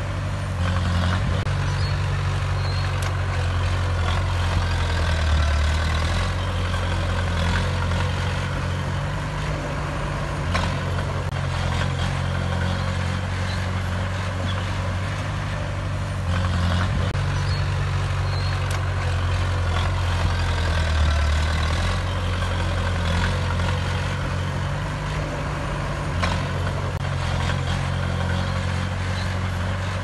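Small crawler bulldozer's diesel engine running steadily as it pushes dirt fill, its level rising and falling every few seconds, with a few sharp clanks.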